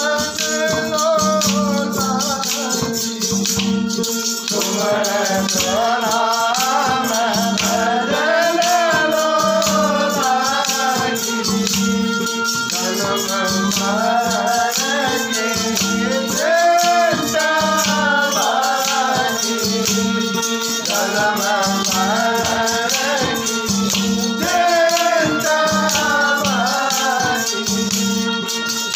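A man singing a devotional bhajan over the steady drone of a plucked long-necked gourd lute (ektara), with wooden kartal clappers jingling in rhythm.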